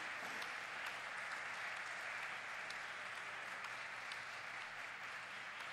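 Audience applauding: a steady, faint patter of many hands clapping, easing off slightly toward the end.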